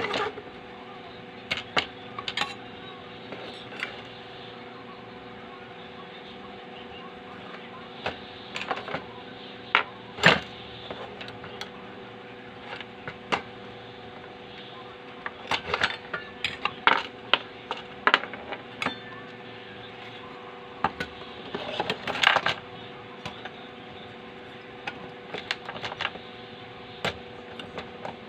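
Irregular clicks and knocks of an aluminium heatsink, circuit board and screwdriver being handled on a workbench while an audio amplifier is taken apart, in small clusters now and then. A steady hum runs underneath.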